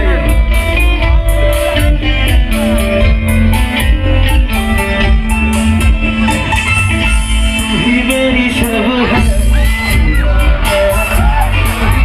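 Live band music through a PA system: a male voice singing over electric bass guitar and drums with a steady beat.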